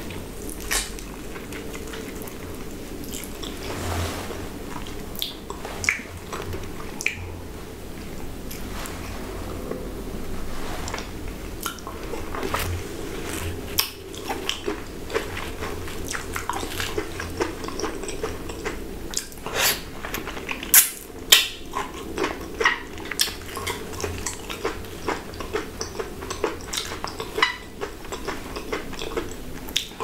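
Close-miked, messy eating of a whole ripe Jamaican mango: irregular wet bites, smacks and squelches as the juicy flesh is bitten and sucked off the fruit, with a cluster of louder smacks a little past the middle.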